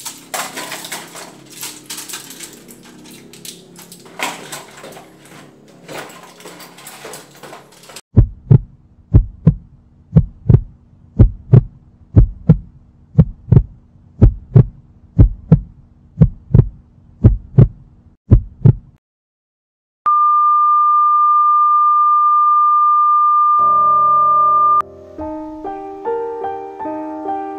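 Soft clicks and rustling of hands handling small objects at a sink, then a heartbeat sound effect: loud low thumps in lub-dub pairs, about one pair a second, for some ten seconds. After a moment's silence a steady high tone sounds for about five seconds and cuts off abruptly, a heart-monitor flatline effect, as soft piano music begins.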